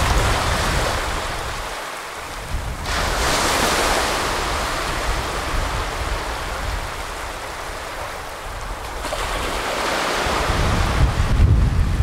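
Small sea waves breaking and washing up a sandy beach, the hiss of the wash swelling about three seconds in and again near nine seconds. Wind rumbles on the microphone near the start and end.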